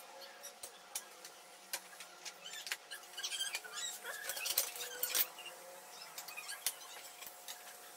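Scattered light clicks and taps from handling the mesh stretcher's metal clamping bars against the frame and mesh, with a few faint high squeaks in the middle of the stretch.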